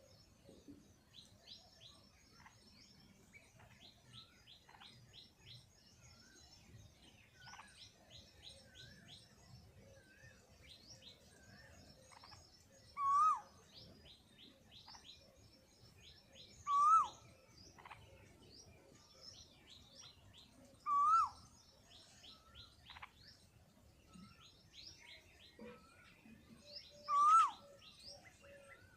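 Birds calling: a constant scatter of quick, high chirps, with a louder single call that rises and falls, repeated about every four seconds.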